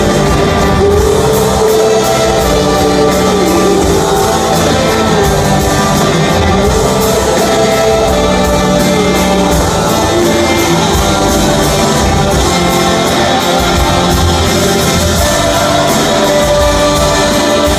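Live rock band playing a song with guitars, drums and singing.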